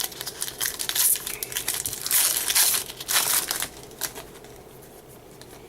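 Trading-card pack wrapper crinkling and tearing as it is opened, in a run of crackly bursts between about one and four seconds in.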